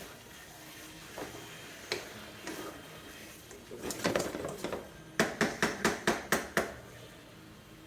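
A cooking spoon stirring and scraping in a pot of simmering vegetables, then rapped on the pot's rim seven times in quick succession, about five knocks a second, to knock the food off.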